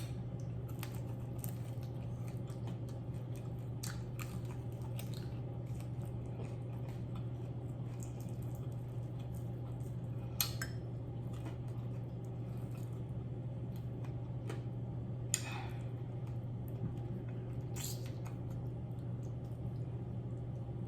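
A person chewing food close to the microphone, with scattered small clicks and taps and three sharper clicks, over a steady low hum.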